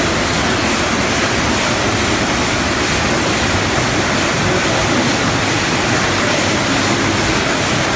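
Steady, loud, even roar of a running poultry processing line: an overhead shackle conveyor carrying carcasses through rotary carousel processing machines.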